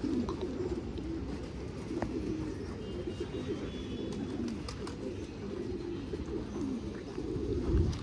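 Many domestic pigeons cooing together at a rooftop loft, a steady overlapping murmur with a few faint clicks. A low thump near the end.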